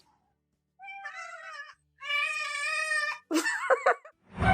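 A domestic cat meowing three times: a short call, then a longer, louder one, then a brief wavering one.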